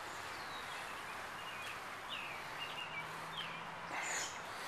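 Steady outdoor background noise with a few short bird chirps between about two and three seconds in, then a brief rustle near the end.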